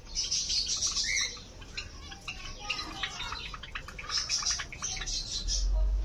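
Mixed flock of caged Java sparrows and zebra finches chirping, many short overlapping chirps with no pause. A low rumble comes in near the end.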